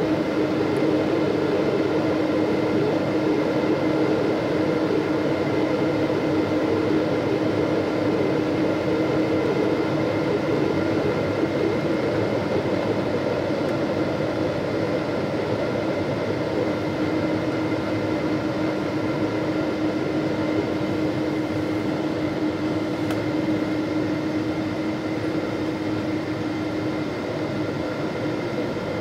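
Jet airliner cabin noise on descent: a steady rush of airflow and engine noise with a few steady hums and a faint whine running through it. It grows a little quieter near the end.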